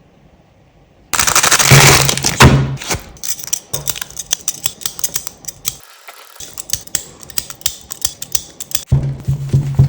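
Crunchy slime being crushed: dense, fast crackling and popping that starts suddenly about a second in after near silence.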